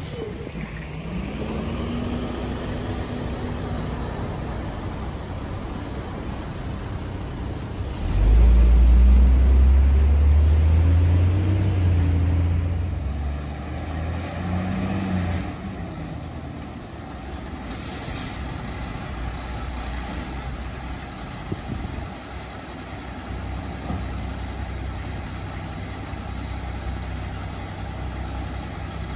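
Diesel engine of a 1996 Volvo WXLL garbage truck pulling away and running, its pitch rising about a second in, with a loud low rumble for several seconds about a third of the way through. About 18 seconds in there is a short air-brake hiss as the truck stops, and the engine then idles steadily.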